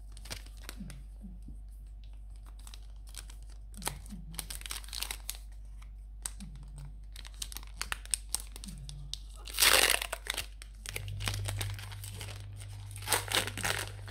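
Foil Pokémon booster pack wrapper crinkling and tearing as it is opened by hand, in many small crackles with the loudest tear about ten seconds in.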